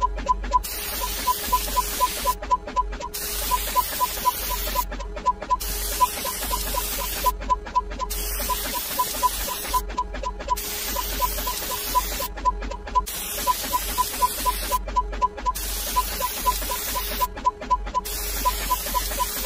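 Rapid short electronic beeps, about four or five a second in runs, the tick sound of a number-counter animation counting up fast, over a steady hiss and low hum. The hiss briefly cuts out every couple of seconds.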